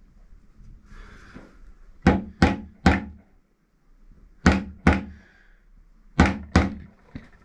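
Soft-faced mallet knocking on a Ytong aerated concrete block to tap it into line on its mortar bed: seven dull knocks in three quick groups of three, two and two, with a faint tap near the end.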